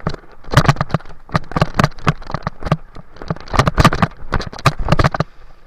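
Mountain bike rattling and knocking as it is ridden fast over rough dirt, a quick irregular run of sharp knocks and clatter through the camera mount that stops about five seconds in.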